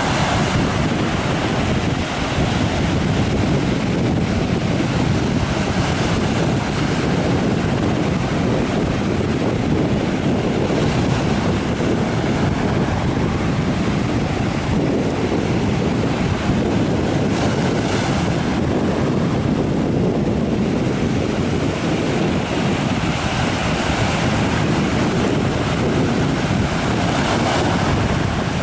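Sea surf washing and breaking on a sandy shore, a steady rushing noise, with wind buffeting the microphone.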